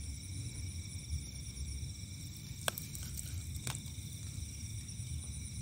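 Steady high-pitched chorus of night insects, several shrill tones droning at once, over a low rumble. Two sharp clicks come about a second apart near the middle.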